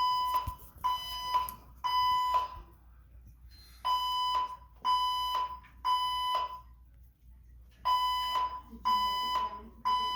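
Gentex wall speaker strobes sounding a 1000 Hz tone in the temporal-3 (code 3) pattern: three beeps about a second apart, a pause, then repeating, three rounds in all. This is the standard fire-alarm evacuation signal from a Fire-Lite ECC-50/100E voice-evac panel.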